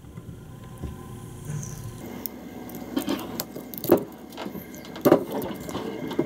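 Original protective paper being picked at with fingernails and peeled off the metal faceplate of an elevator call station, with irregular sharp crackles and scratching from about two seconds in. It is tearing away in pieces rather than one sheet, which the owner says is peeling off really terribly.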